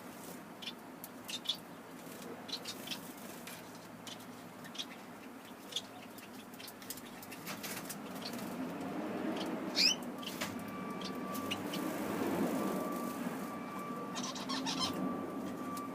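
Small aviary finches and canaries chirping in short, scattered calls. A louder rushing noise swells up about halfway through, and a steady hum comes in soon after.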